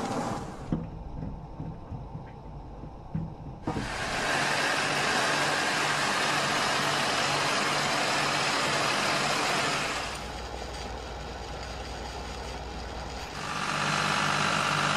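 Car engine running with a steady hiss, its loudness stepping up and down abruptly a few times. There are a few sharp knocks in the first four seconds.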